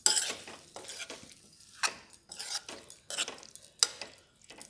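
Metal spoon stirring chickpeas in a thick spiced masala in a metal kadai, with irregular scrapes and clinks of the spoon against the pan.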